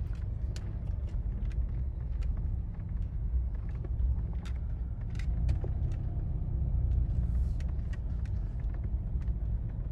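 Inside a car's cabin, a steady low rumble of the car driving slowly over a rough, unpaved dirt road, with scattered light clicks and ticks.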